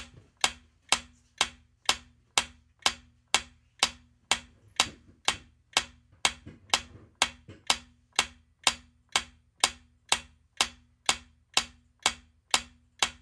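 Clock-style ticking sound effect for a quiz countdown timer, sharp evenly spaced ticks about two a second, marking the seconds left to answer.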